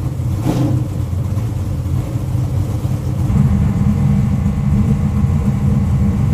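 Dirt modified race car's carbureted V8 engine running steadily at a low idle, its note growing a little stronger about three seconds in.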